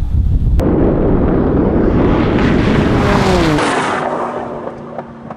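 Porsche 911 flat-six at full throttle passing close by at high speed, its engine note dropping sharply in pitch as it goes past about three seconds in, then fading away as the car recedes. Wind buffets the microphone for the first half-second.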